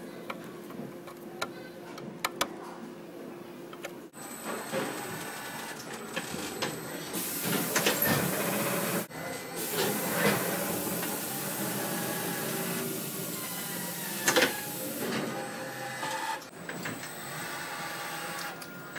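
Quiet at first with a few light clicks; about four seconds in, the electric drive of a large radio-controlled model mining loader starts running with a continuous whirring and a hiss that comes and goes.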